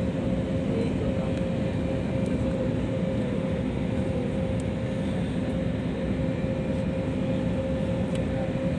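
Steady engine and airflow noise heard inside an airliner's cabin as it descends, a constant low rumble with a steady hum running through it.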